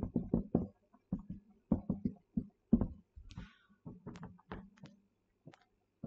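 Marker pen writing on a whiteboard: an irregular string of short taps and scratches as letters are drawn, with a brief hissing scratch about three seconds in.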